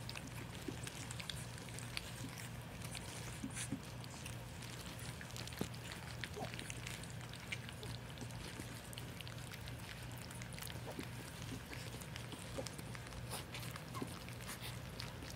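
Weaning puppies lapping and smacking at wet puppy mash on a plate: faint, scattered wet clicks and slurps all through. A steady low hum runs underneath.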